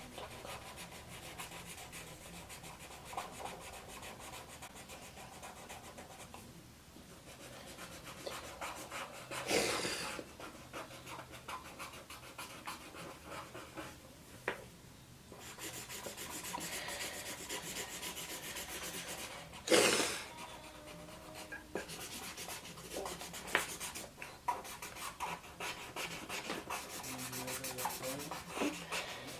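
Felt-tip marker scratching back and forth on paper in quick colouring strokes, with two brief louder bursts, one about ten seconds in and one about twenty seconds in.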